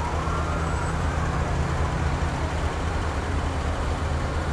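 Steady low rumble of a long column of fire trucks and pickups driving past in a parade. A faint siren wail sounds in the background and fades out within the first second or two.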